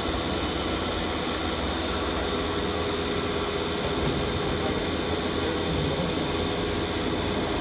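CF-RT1625ATC automatic tool change CNC wood router running steadily as its spindle head works a small wooden panel: a constant machine whine over an even rushing noise.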